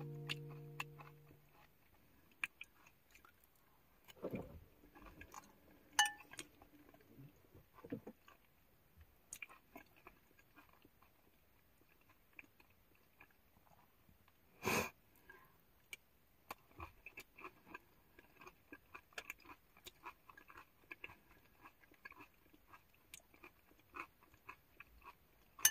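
Quiet chewing and eating sounds in a small enclosed space, with scattered small clicks and crunches and one louder knock about fifteen seconds in.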